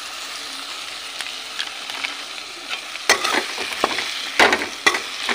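Drumsticks and potato frying in oil in a metal kadai, with a steady sizzle. From about three seconds in, a metal spatula stirs and scrapes against the pan in several sharp scrapes and knocks.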